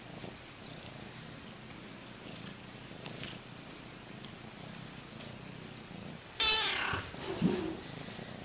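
Orange tabby kitten purring steadily while being stroked, then a loud meow about six and a half seconds in, followed by a shorter, lower cry.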